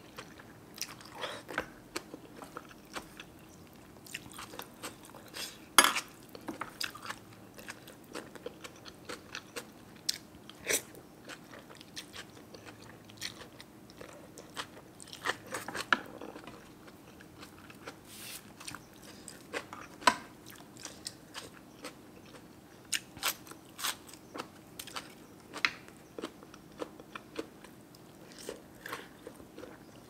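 A person eating close to the microphone: chewing and crunchy bites of noodle soup with raw greens and grilled chilies, heard as many irregular sharp clicks. The loudest are about 6 and 20 seconds in.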